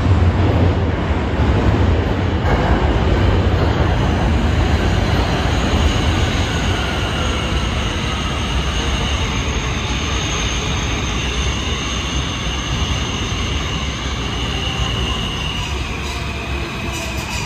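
R160 subway train running through the station: a heavy low rumble with high-pitched wheel squeal, gradually getting quieter.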